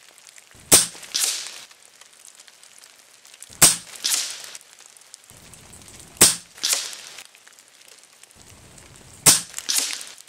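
A .22 RTI Arms Priest 2 PCP air rifle firing four shots, one every two and a half to three seconds. Each sharp crack is followed about half a second later by a softer, longer sound.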